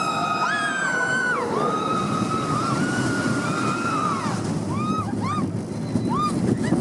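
Several people screaming on a roller coaster: long, high-pitched held screams, some overlapping, each rising at the start and falling away at the end, over a steady rush of wind noise.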